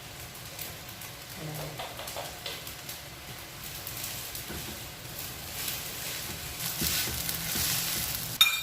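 Rice frying in oil in a pan, sizzling as it is stirred, the sizzle growing stronger in the second half. A short sharp clatter of the utensil against the pan comes near the end.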